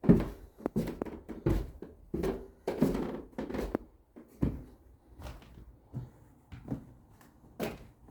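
Irregular knocks and thuds of demolition work, about two a second, heavier in the first half and lighter toward the end.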